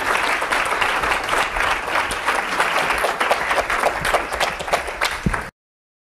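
Audience applauding, a dense patter of many hands clapping, that cuts off suddenly near the end.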